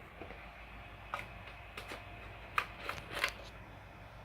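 Scattered light clicks and taps from small objects being handled, about seven short sharp ones over quiet room tone, clustered in the second half.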